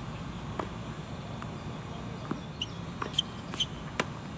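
Tennis ball being hit and bouncing during a rally: sharp pops roughly a second apart, with a few short high squeaks in the second half.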